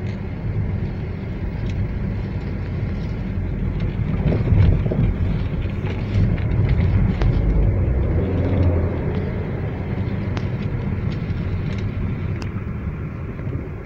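Range Rover Evoque driving, heard inside the cabin: a steady low road and drivetrain rumble with a few light knocks and a brief swell about four seconds in. The differential noise is no longer audible after a PTFE and molybdenum disulfide additive treatment of the worn differential.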